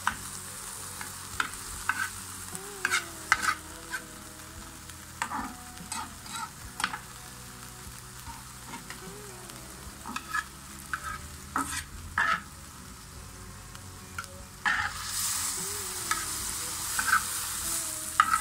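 Bite-sized boneless chicken pieces sizzling in oil in a frying pan while a metal spatula scrapes and taps against the pan as they are stirred. The sizzle grows louder near the end.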